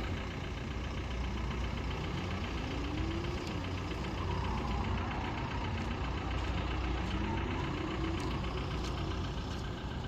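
Motorboat engine idling with a steady low rumble, as the boat moves slowly through the marina. A fainter whine rises and falls a few times in the middle.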